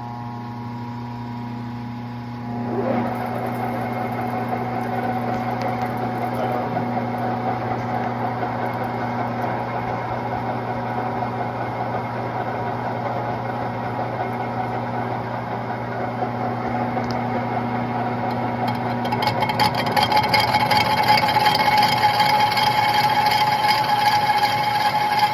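A steady electrical hum, then a machine starting about three seconds in and running steadily, getting louder and more rattly near the end.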